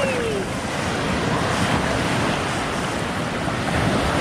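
Ocean surf washing in at the shore, a steady rush, with wind on the microphone.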